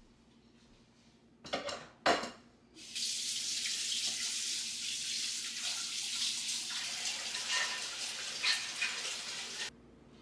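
A tap turned on and running water into a sink for about seven seconds, then shut off abruptly, preceded by two short knocks of handling.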